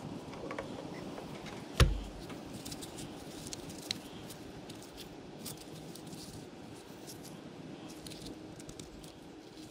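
Small metallic clicks and clinks as the governor flyweight assembly of a Bosch P7100 injection pump is handled, with one loud thump about two seconds in.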